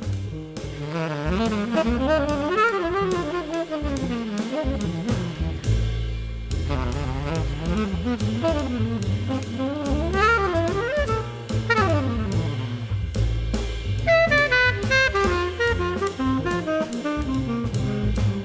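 Background jazz music: a saxophone melody over bass and drums.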